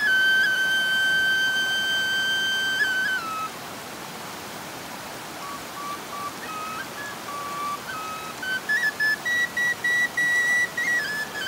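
Wanjli folk flute played solo. A long high note is held for about three seconds, then falls to a quieter, lower phrase, and from about eight seconds in it moves to a run of short, separately tongued higher notes.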